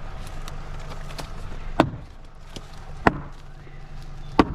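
Three sharp blows a little over a second apart: felling wedges being driven into the cut in a eucalyptus trunk. A low steady hum runs underneath.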